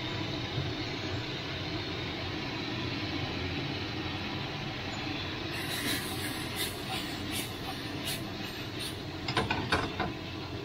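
Chicken and bell peppers sizzling steadily in a nonstick wok over a gas flame. From about six seconds in, the wok is tossed and a spatula scrapes and knocks against the pan several times.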